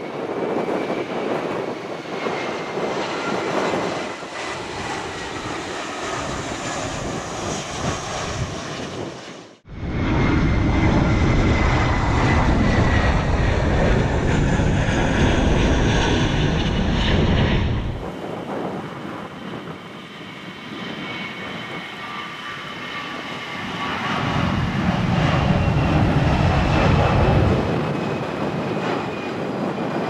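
Airbus A320-214 jet engines running as the airliner passes, a whine gliding slowly down in pitch over a steady jet roar. A heavy low rumble comes in and cuts off suddenly twice, in the middle and again near the end.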